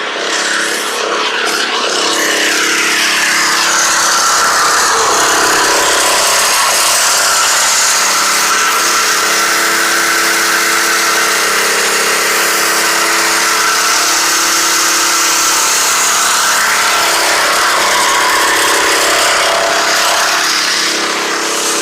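Pressure washer running steadily: a constant engine tone under the hiss of the high-pressure water spray.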